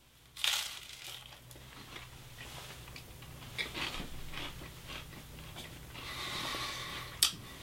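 A bite into a slice of buttered toast about half a second in, then chewing with scattered small crunches, and a sharp click near the end.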